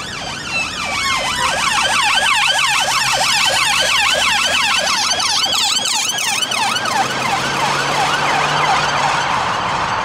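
Two police car sirens sounding together in a fast up-and-down yelp, overlapping one another. They grow fainter in the last few seconds as the cars drive away.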